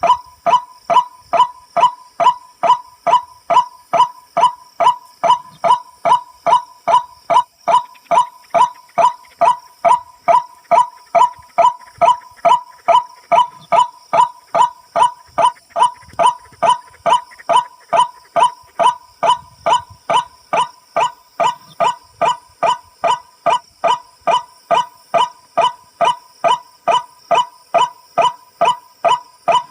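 Tikling (barred rail) call, a short nasal note repeated about twice a second at a perfectly even rate, the call used to lure the birds when hunting them.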